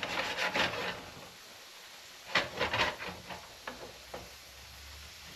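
Thin black drum fillets frying in butter in a hot pan: two short clusters of crackling and clicks, then a few scattered ticks over a faint steady hiss.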